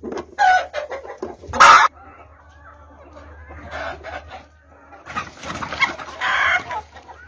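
Chickens clucking. The loudest call comes about a second and a half in, and a longer run of calls starts at about five seconds.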